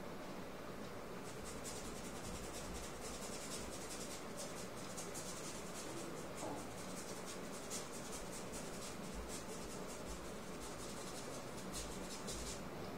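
A paintbrush scratching across a painting surface in quick, repeated short strokes as paint is scrubbed on. The strokes start about a second in and stop shortly before the end.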